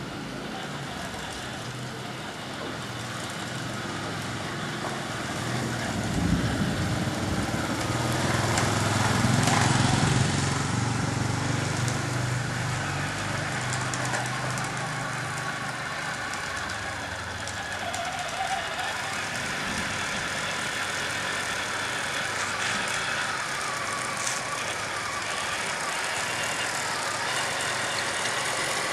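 Simulated M1A2 Abrams tank engine sound played by a 1/16 RC tank's on-board MP3 sound module as the model drives. The engine sound is steady and grows louder about six seconds in, peaking around ten seconds before settling back.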